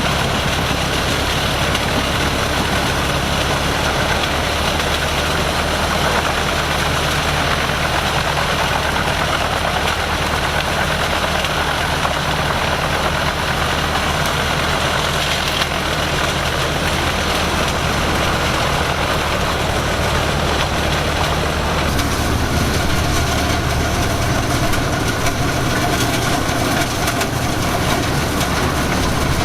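Heavy diesel engine running steadily, its tone shifting about twenty-two seconds in.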